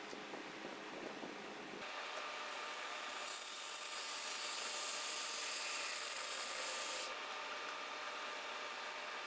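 Cordless reciprocating saw cutting a small bracket clamped in a bench vise, a steady buzzing cut with a high whine that starts about two and a half seconds in and stops abruptly about seven seconds in.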